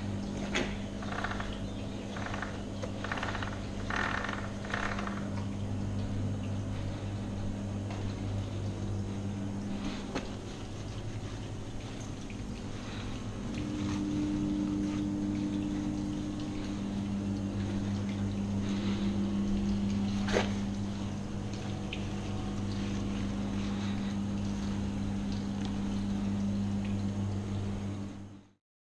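A gloved hand wiping down a wet dirtbike, with rubbing strokes about twice a second in the first few seconds and trickling water. A steady low electric hum runs underneath.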